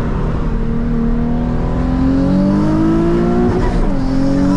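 Twin-turbocharged 2006 Nissan 350Z's 3.5-litre V6 accelerating hard, its pitch climbing steadily, dropping sharply at an upshift a little over three and a half seconds in, then climbing again in the next gear.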